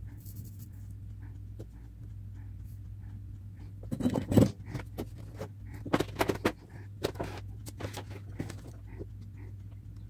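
Scattered clicks and knocks of small electronic parts and tools being handled on a workbench, with a cluster about four seconds in and more around six to seven seconds, over a steady low hum.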